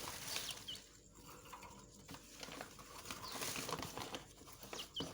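Soft rustling and scratching from handling and movement, with a few short, high cheeps from the nestling songbirds, about a second in and twice near the end.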